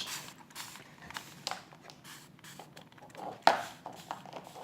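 Quiet handling noises in a small room: faint taps, clicks and rubs, with one sharper tap about three and a half seconds in.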